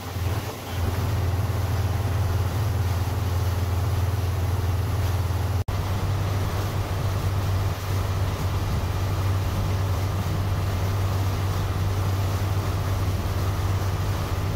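Steady low engine drone of the small boat the footage is shot from, with a hiss of water and wind over it. The sound drops out for an instant about six seconds in, then the same drone carries on.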